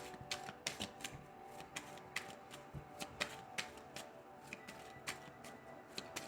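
Irregular light clicks and taps, a few a second, over faint background music.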